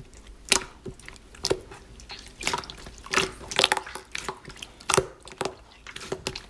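Slime being squeezed and poked by hand, making irregular wet clicks and pops, a few a second.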